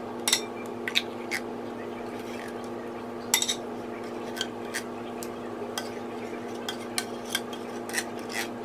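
Metal spoon scooping thick coconut cream out of a tin can and knocking it off against the can and a glass mixing bowl: irregular light clinks and scrapes, a dozen or so, over a steady low hum.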